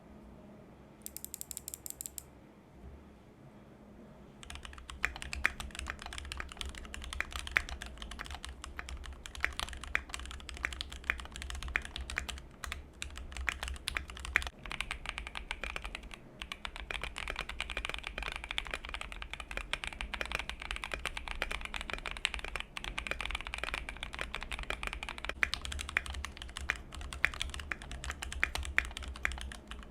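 Keychron Q2 mechanical keyboard with its stock brown switches, typed on fast and continuously: a dense run of key clacks that begins about four seconds in. Before that there is only a brief run of faint high ticks.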